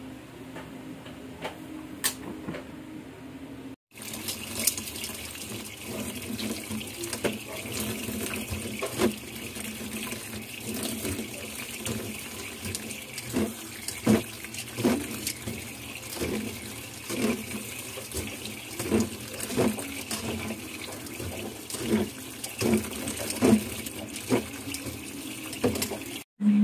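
Tap water running and splashing onto guso seaweed in a plastic colander as it is rinsed, with frequent small knocks and splashes from handling. For the first four seconds, before a cut, a steady low hum instead.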